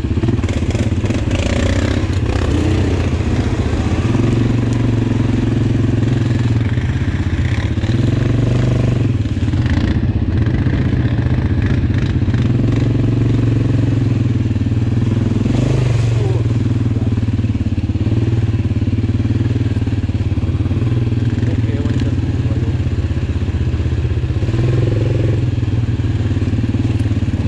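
Suzuki KingQuad 700's single-cylinder four-stroke engine running steadily under way as the ATV rides over a rutted, muddy trail, with occasional short knocks and clatters from the bumps.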